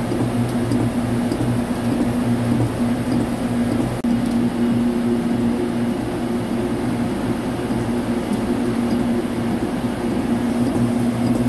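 Vertical lathe running steadily while its tool takes a 2 mm-deep cut in SM50C (1050) steel with the spindle at 50 rpm: a constant machine hum with a steady low drone. The sound dips briefly about four seconds in.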